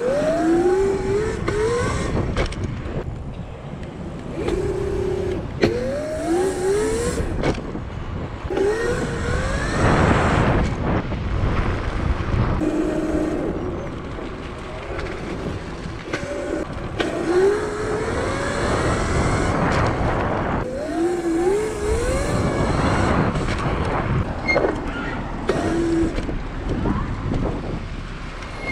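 The electric motor of a Razor MX500 electric dirt bike whining, its pitch rising again and again as the bike speeds up and falling back when the throttle eases, with a few short spells at steady speed. Rushes of noise come and go over the whine.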